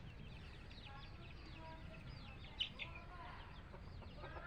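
Chickens heard faintly: a steady run of quick, high, downward-sliding peeps typical of chicks, with a few lower hen clucks and one sharp click about two and a half seconds in.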